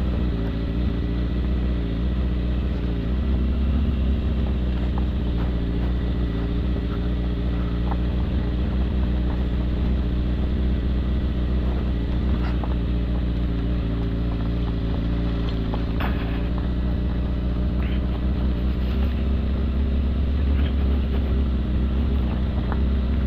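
Suzuki GSX-R750 SRAD sport bike's inline-four engine running steadily at low speed while riding a gravel road, with a few sharp clicks.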